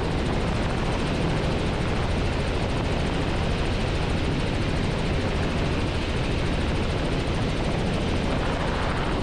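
Robinson R44 helicopter in steady cruising flight, heard from inside the cockpit: an even, unbroken drone of engine and rotors.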